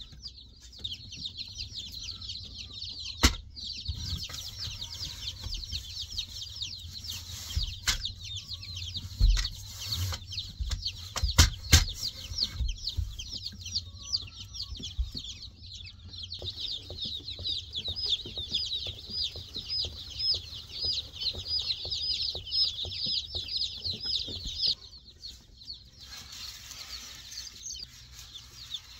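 A crowd of day-old chicks peeping constantly in high, overlapping chirps that thin out sharply near the end. A few sharp knocks from handling a plastic chick waterer stand out as the loudest sounds.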